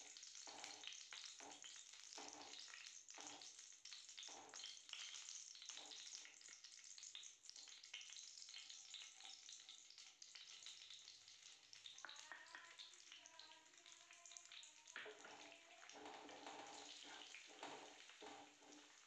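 Ghee sizzling faintly in a non-stick kadhai while a wooden spatula stirs and scrapes, then ground almonds are tipped in and stirred through the hot ghee to roast.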